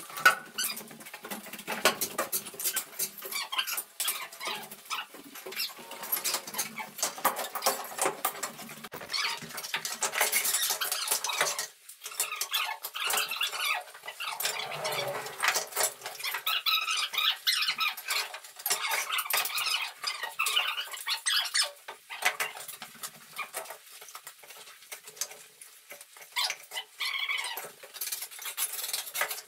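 Hand tools scraping over sand and mortar, with pieces of broken marble clinking and knocking together: a dense, uneven run of clicks and scrapes.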